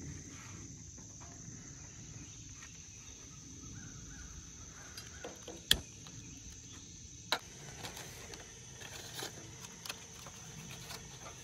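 Steady high-pitched chirring of insects in the woods, with a few sharp clicks and knocks of cookware, the loudest about six seconds in, as a frying pan is set on a camp stove.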